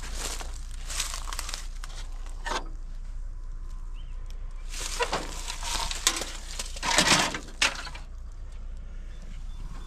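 Footsteps crunching and rustling through dry undergrowth in an irregular rhythm, the loudest about seven seconds in, with a couple of sharp clicks.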